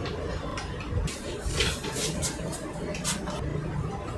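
Handling noise from a 102 mm refractor tube and its equatorial mount as the tube is fitted onto the mount: a low thump about a second in, then a string of short clicks and rubs from the parts.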